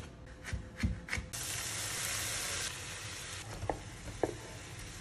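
A kitchen knife chopping green onions on a wooden cutting board, several quick strokes. About a second in, a frying pan sizzling steadily, louder at first, with two light knocks near the end as tofu cubes are slid off the board into the pan.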